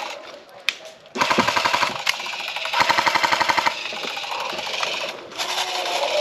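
Airsoft guns firing rapid full-auto bursts, a fast mechanical rattle of evenly spaced shots. There is a burst about a second in, another around the middle and more near the end.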